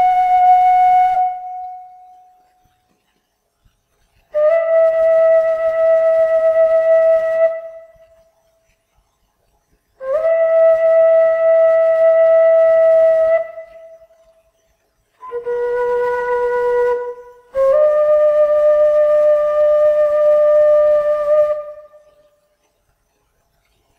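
Slow, solemn solo melody of long held wind-instrument notes, about five in all, each lasting two to four seconds and sliding up slightly into pitch, with short silences between them.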